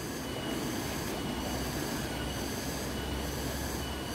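Swollen river rushing steadily, with a thin, steady high-pitched whine over it.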